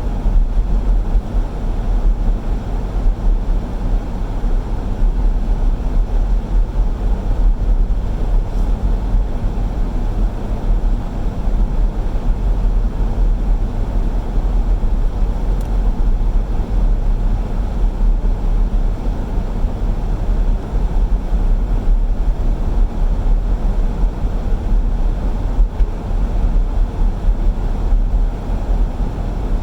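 A car driving on snowy roads: a steady, loud low rumble of road and engine noise, with no distinct knocks or changes.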